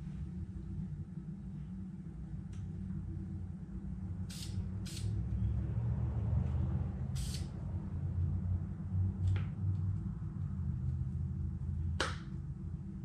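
Short hisses from an aerosol spray-paint can, two quick ones near the middle and a slightly longer one soon after, over a steady low hum. A sharp click comes near the end.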